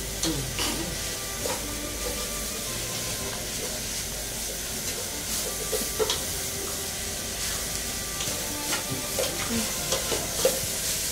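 Vegetable filling of carrots sizzling in a frying pan while it is stirred, with a steady frying hiss and a spoon now and then clicking and scraping against the pan.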